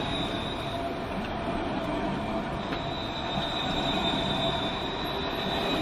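Tram wheels squealing on the rails, a thin high steady whine that drops out just under a second in and comes back just before the three-second mark, over continuous city street noise.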